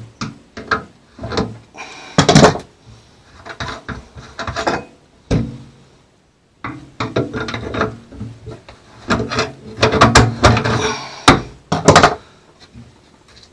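Irregular knocks, clunks and scraping of hand tools and a galley sink's metal drain fitting being worked loose and taken apart. The sound drops out completely for a moment about six seconds in.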